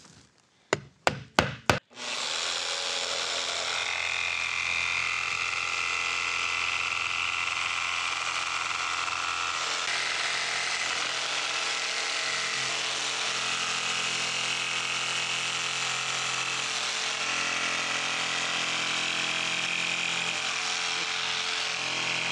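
A hammer taps a nail about five times, then an electric jigsaw starts about two seconds in and runs steadily, cutting a circle in a wood panel.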